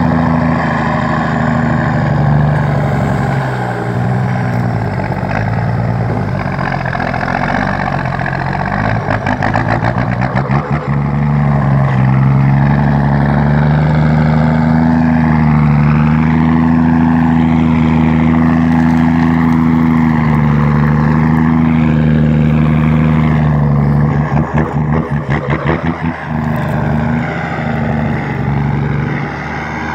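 Leyland 411 diesel engine of a loaded truck running under load, a steady low engine hum. The engine note wavers and pulses briefly around ten seconds in and again near the end.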